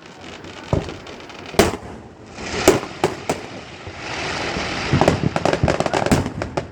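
Fireworks going off: several separate sharp bangs, then a hissing crackle from about four seconds in that turns into a rapid run of crackling pops.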